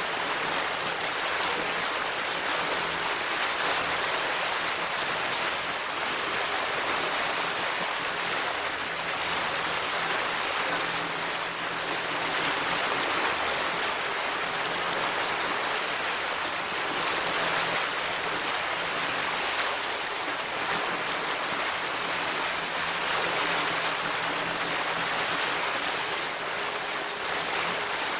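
Steady rush of water churned up by a motorboat running at speed, with the engine's low hum faintly underneath.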